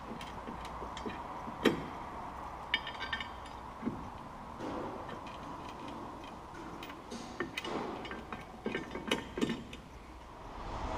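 Metal clinks and knocks as a steel tow-hitch side plate is held against the van's chassis rail and bolted on with washers. A sharp knock comes about two seconds in, a ringing clink about a second later, and a cluster of knocks near the end, over a steady faint hum.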